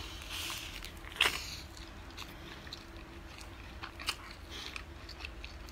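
Biting into and chewing a homemade crumb-coated cheese hot dog on a stick, heard as a few sharp crunches among quieter chewing. The loudest crunch comes about a second in.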